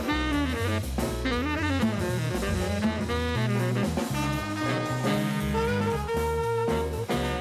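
Jazz music with saxophone and brass over a drum kit, a bass line moving note by note underneath.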